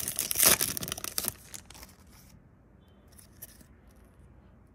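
Foil wrapper of a Yu-Gi-Oh booster pack being torn open and crumpled by hand: loud crinkling in the first second or so, dying away to a few faint rustles as the cards are taken out.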